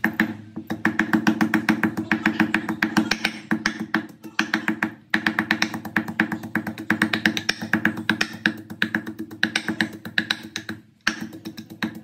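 Rapid, even wooden knocks of a wooden pestle pounding a paste in a wooden mortar, breaking off briefly twice, with background music.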